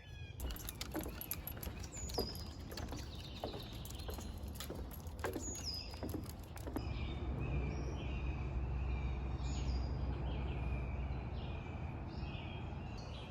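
Birds singing outdoors: short whistled phrases, a couple sliding down in pitch, then repeated quick notes through the second half, over a steady low rumble with a few clicks in the first half.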